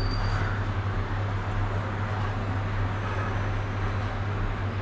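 Steel pot of water near the boil on a stove: a steady low rumbling hum with an even hiss over it.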